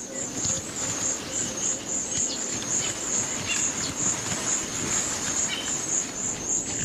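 Insect, likely a cricket, chirping steadily in a high-pitched pulsing trill of about three pulses a second, over a faint rustling bush ambience.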